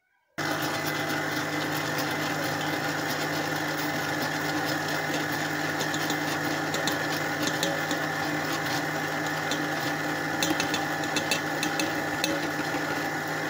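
Electric mixer with a wire balloon whisk switched on about half a second in, then running at a steady speed, beating eggs and coarse sugar in a steel bowl. Scattered light ticks sound over the motor, most of them about ten seconds in.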